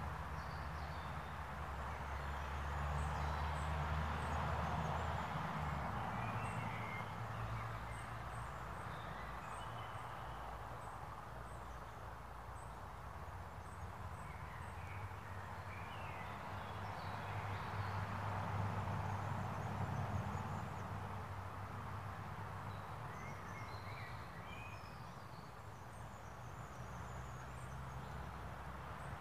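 Woodland ambience: small birds singing here and there in short chirps and trills, over a steady low rumble and a hiss that slowly swells and fades.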